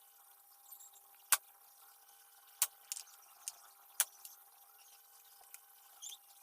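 A handful of sharp clicks or taps, five in all, irregularly spaced over a faint steady hiss.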